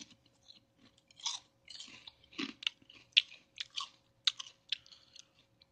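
Mouth chewing a Lay's Cheesy Garlic Bread potato chip: irregular crisp crunches that come in quick clusters.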